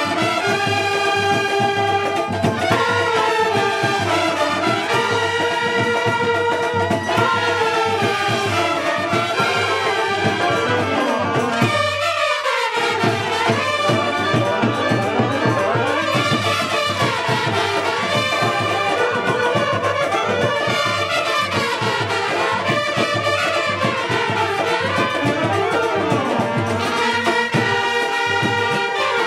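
Street brass band playing a tune on saxophones, clarinets and brass over a drum kit beat, with a brief break in the lower parts about twelve seconds in.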